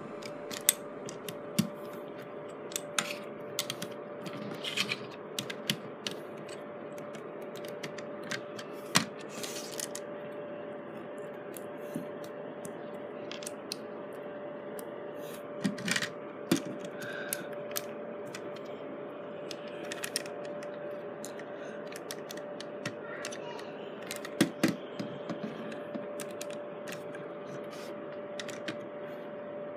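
Plastic LEGO bricks clicking and snapping together as small pieces are handled and pressed onto a model car: irregular small clicks in scattered clusters, over a steady faint hum.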